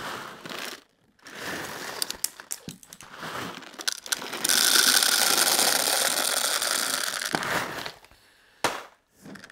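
Plastic airsoft BBs being poured from a bag into the top of a high-capacity M4 magazine, rattling in. The pour is uneven at first. About four and a half seconds in it becomes a steady stream, and it stops near the end.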